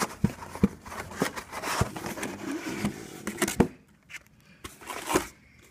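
Cardboard box and packing foam rustling, scraping and clicking as a device is worked out of its packaging. It goes quiet about three-quarters of the way through, apart from one knock near the end.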